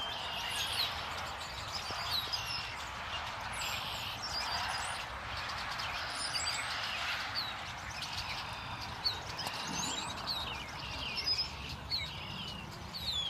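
A large flock of birds calling together, many short chirps and whistles overlapping in a continuous chatter.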